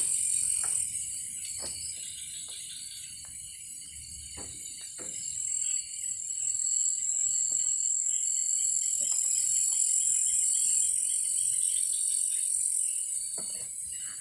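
Steady high-pitched chorus of night insects in tropical forest, swelling louder in the middle, with scattered light knocks and clatters of gear being handled on a wooden hut floor.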